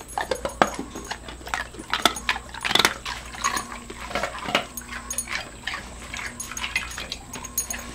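Dogs crunching ice cubes: a run of short, sharp crunches and clicks.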